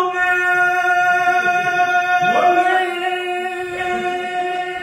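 A man chanting a hlado, the Mizo hunter's victory cry, in long, steady held notes. About two seconds in he takes a new breath and swoops up into a second long held note.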